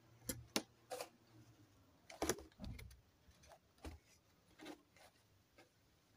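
Packaging being handled during an unboxing: a cardboard box and its contents rustle, with scattered light knocks and clicks, the loudest about two seconds in.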